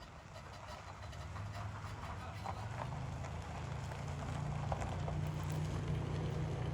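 A vehicle engine running: a low, steady hum over a noisy hiss that grows gradually louder, its pitch stepping up slightly about four to five seconds in.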